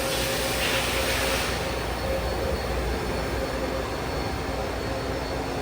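Steady machine hum with a constant mid-pitched tone; a hiss above it fades away about a second and a half in.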